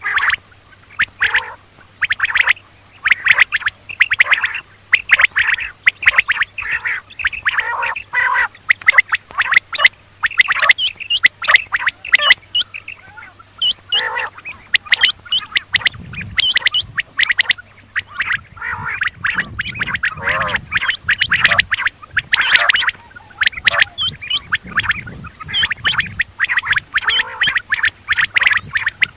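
Quail calling: a dense, irregular stream of short, harsh calls, many in quick succession.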